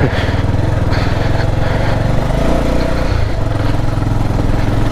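Bajaj Pulsar 220F's single-cylinder engine running at low speed on a climb, with a steady pulsing note that shifts about three seconds in.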